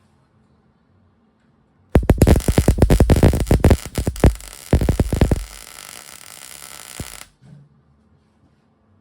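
Arc welding on sheet steel. About two seconds in a burst of loud crackling and popping starts. It settles into a steadier, quieter sizzle and cuts off abruptly about seven seconds in, as the arc is broken.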